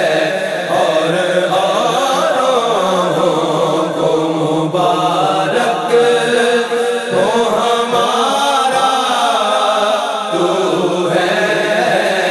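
Devotional naat singing: a male voice holding long, wavering melodic lines in a chant-like style over a steady drone.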